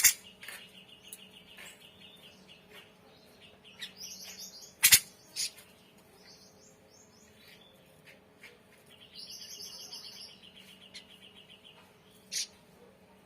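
Grey-cheeked bulbul (cucak jenggot) singing: rapid trilled phrases and higher chattering notes, broken by loud sharp calls at the start, about five seconds in and again near the end.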